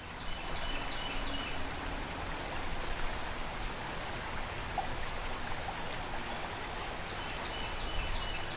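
Shallow creek water running steadily over a rocky riffle, with a few short high chirps near the start and again near the end.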